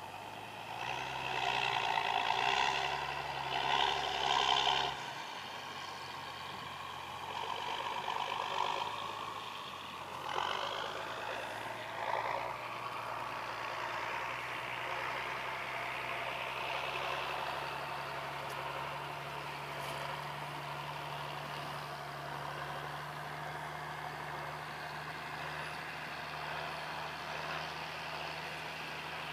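A vehicle heard from inside as it moves off. Its engine or motor rises in pitch from about ten seconds in as it speeds up, then settles into a steady run. A louder, pulsing sound fills the first five seconds.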